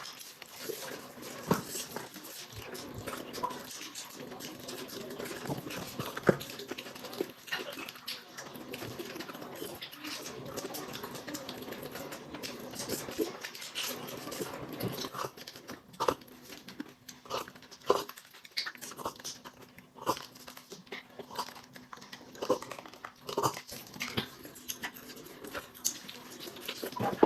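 Close-up eating sounds: a person chewing and biting into roast chicken, with scattered short smacks and clicks.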